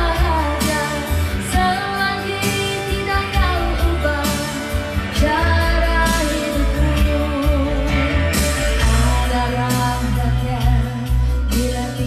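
A woman singing into a handheld microphone over a karaoke backing track, with bass and a steady drum beat under her voice.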